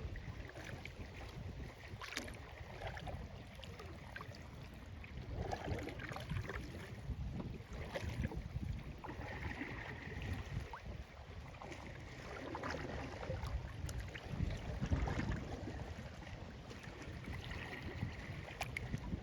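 Light water sounds around a kayak on a lake, small splashes and drips against the hull, with wind rumbling on the microphone.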